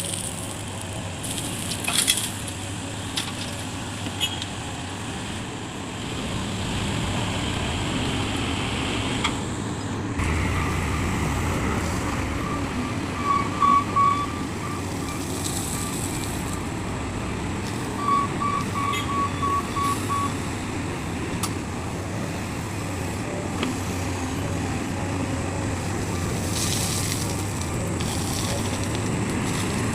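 Diesel engines of heavy earthmoving machinery running steadily, with two short runs of rapid high beeping from a warning alarm near the middle.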